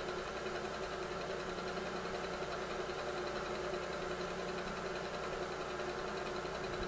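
Precision Matthews PM-727 milling machine running steadily with an edge finder in the spindle, an even machine hum with a few constant tones.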